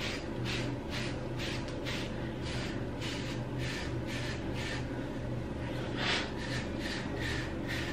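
Hairbrush swishing over short, close-cropped hair in quick repeated strokes, about two to three a second, brushing the hair toward its wave pattern. A steady low hum sits underneath.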